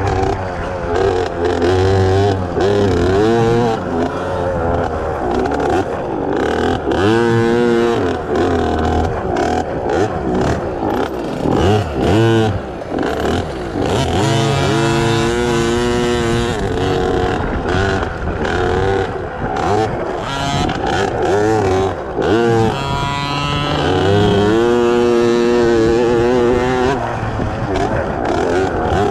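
KTM 50 kids' dirt bike's small single-cylinder two-stroke engine racing, revving up and easing off over and over, its pitch climbing and dropping every few seconds.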